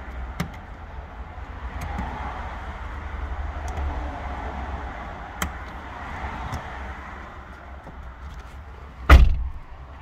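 A Honda CR-V door is shut with one loud thump about nine seconds in. Before it there are a few faint clicks over a steady low rumble.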